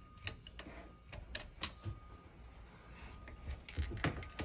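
Irregular metallic clicks and taps of a flat-blade screwdriver working a small hose clamp loose on an engine hose, with the hose being handled near the end.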